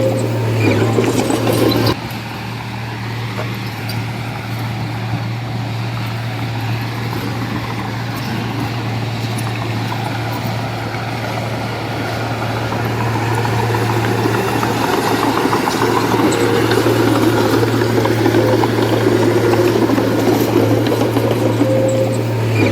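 Heavy diesel engine of construction machinery running steadily with a constant low hum. It drops in level abruptly near the start and builds up louder again over the second half.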